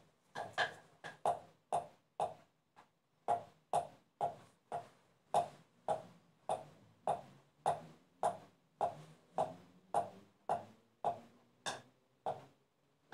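Wooden pestle pounding biscuits in a wooden mortar, crushing them into crumbs, in an even rhythm of about two strikes a second that stops near the end.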